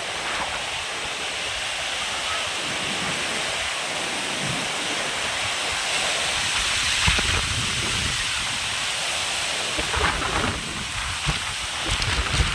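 Heavy rain pouring down in a storm, a steady hiss, with gusts of wind buffeting the microphone now and then.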